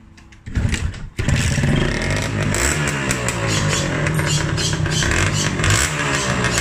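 Kawasaki Victor 150's single-cylinder two-stroke engine on its stock exhaust, starting: it fires briefly about half a second in, then catches just after a second in and runs, revved up and down repeatedly.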